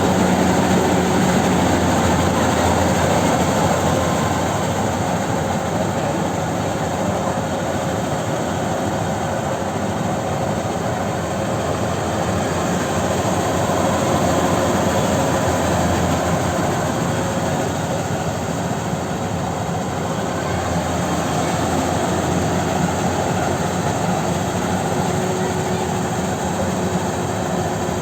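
Kubota DC-93 combine harvester running steadily while harvesting rice: a continuous drone of its diesel engine and machinery, with no breaks or changes.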